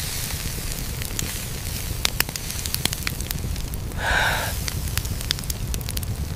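Wood fire crackling with scattered sharp pops over a low steady rumble, with a brief louder hiss about four seconds in.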